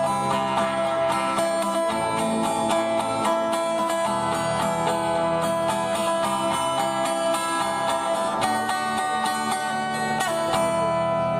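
Acoustic guitar strummed in a steady rhythm through the closing bars of a song, played live through a stage PA, the chord changing about eight seconds in and again near the end.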